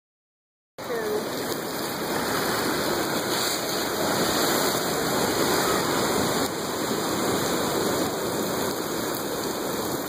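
Steady rush of ocean water washing and splashing, which starts about a second in.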